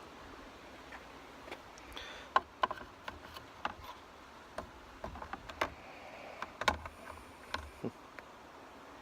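Irregular sharp plastic clicks and taps as a Mercedes W212 wing-mirror LED turn-signal unit is handled and clipped back into the mirror housing.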